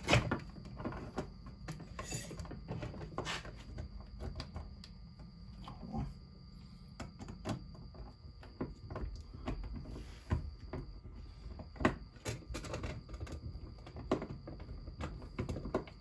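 Scattered small clicks and taps of a plastic toy-train car body, screws and a hand screwdriver being handled as a screw is driven back into the plugged hole. A faint steady high tone runs underneath.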